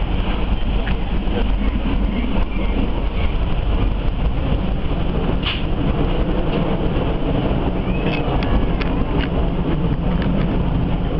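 Moving passenger train heard from inside the coach: a steady, loud running rumble of the wheels on the rails. A few brief sharp clicks and squeaks come through about halfway through and again near the end.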